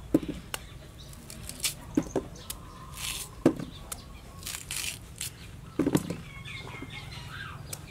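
Cleaver chopping chunks off a raw purple-fleshed tuber held in the hand, about four sharp knocks a second or two apart as the blade cuts through and the pieces drop into a stainless steel bowl. Birds chirp briefly near the end.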